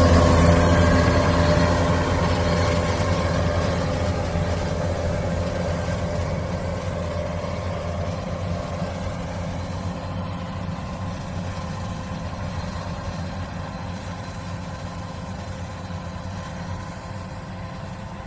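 Kubota rice combine harvester's diesel engine running steadily while it cuts and threshes, growing gradually fainter as the distance to the machine grows.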